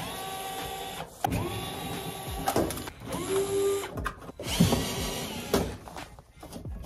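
DeWalt cordless drill-driver backing screws out of a sheet-metal furnace panel, running in several short runs that each spin up and down in pitch, with clicks and knocks between runs.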